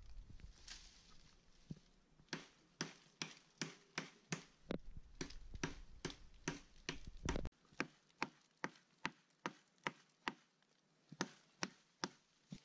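A blade chopping repeatedly into the green trunk of a standing sapling. The strikes come evenly at about two to three a second, starting about two seconds in, with one short pause near the end.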